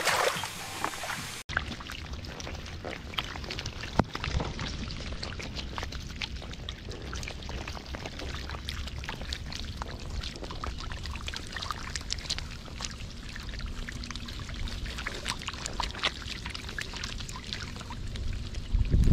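Shallow muddy water splashing and trickling, with many small splashes and drips over a low rumble.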